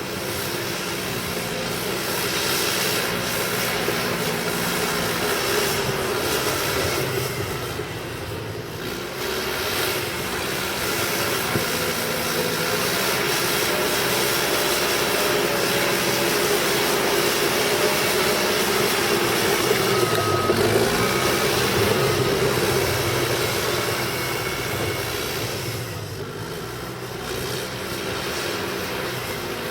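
Cat D5K bulldozer's four-cylinder diesel engine working under load as it pushes mud. The engine eases off briefly about eight seconds in and again a few seconds before the end, then pulls back up.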